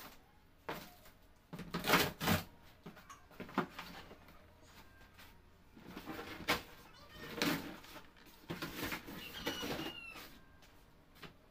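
Plastic drawer cabinet being handled, its drawers knocked and slid: a series of separate plastic clatters and knocks, the loudest about two seconds in.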